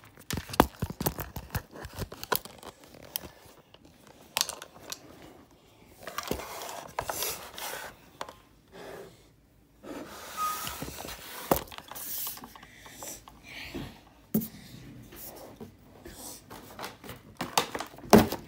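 Irregular knocks, scrapes and rustling from a phone being handled, with skin and fingers rubbing close to its microphone.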